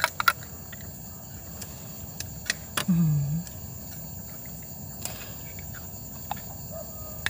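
Crickets chirring steadily at a high pitch, with a few light clicks and a brief murmur of a voice about three seconds in.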